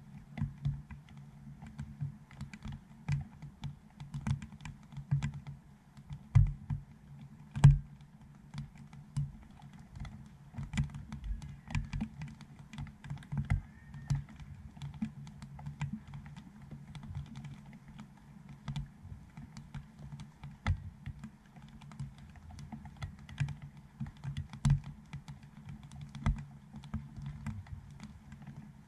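Raindrops striking the plastic dome housing of a GoPro Hero7 camera: irregular sharp taps, several a second, with a few louder hits about six and eight seconds in.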